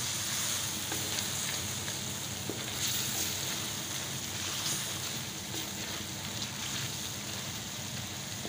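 Chicken and tomato masala sizzling in a kadai while a wooden spatula stirs it, with a few light scrapes against the pan.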